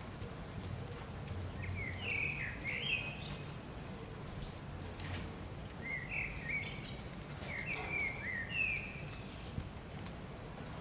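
Rain falling steadily with scattered drips, and a songbird singing two short runs of quick chirps, one about two seconds in and another from about six to nine seconds in.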